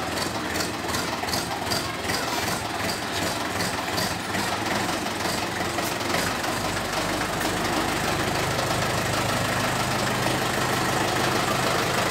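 Mahindra 475 DI tractor's four-cylinder diesel engine running as the tractor is driven slowly; a steadier, deeper hum sets in about six seconds in.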